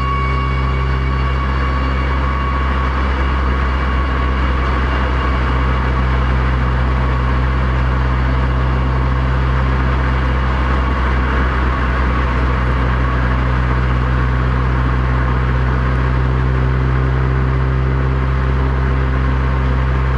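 Subaru WRX STI's turbocharged flat-four engine running steadily with road noise while driving, picked up by a microphone mounted outside the car. A dam discharge warning siren's tone fades away in the first couple of seconds.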